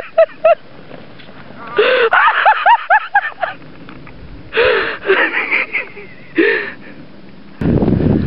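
Breathless, high-pitched laughing in four short bursts, with gasps between, from a person running hard. Near the end, a loud wind rumble on the microphone cuts in.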